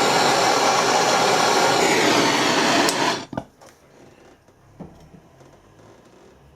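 Propane torch flame burning with a steady loud rush while heating a brass and stainless steel joint for silver soldering. The rush stops abruptly about three seconds in. The torch is too weak for the job: it cannot reach the heat that the silver solder needs.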